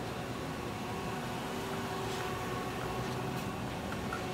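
Steady machinery hum with a few faint held tones above it, and a few faint clicks near the middle.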